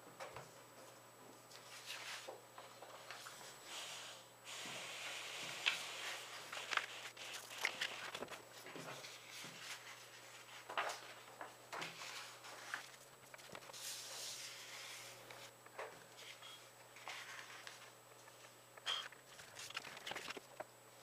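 A sheet of A4 paper being handled and folded on a cutting mat: irregular rustles, swishes and sharp crinkles of paper as it is slid, lifted and creased.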